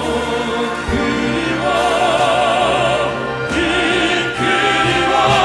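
Male vocal quartet singing sustained notes with operatic vibrato in crossover style, over an amplified orchestral accompaniment.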